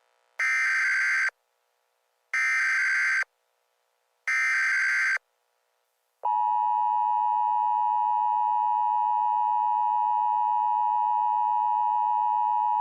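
Emergency Alert System tones: three short bursts of SAME header data, each just under a second long and about two seconds apart, then the steady two-tone EAS attention signal starting about six seconds in.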